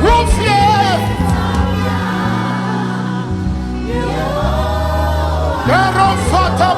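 Live gospel worship music: a choir and congregation singing over a band with sustained bass and keyboard notes.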